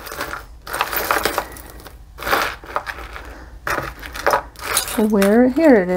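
Hands rummaging through loose costume jewelry, with pieces clinking and rustling in several irregular spells.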